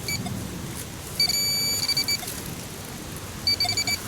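Metal detector pinpointer beeping as it is probed for a buried target: a short beep, then a held tone of about a second that breaks into quick beeps, and a rapid burst of beeps near the end, signalling metal close by.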